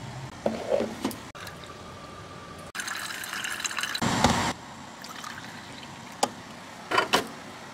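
Coffee being brewed and poured: hot coffee streaming and splashing, with a louder hissing stretch about three seconds in and a few short sharp knocks near the end.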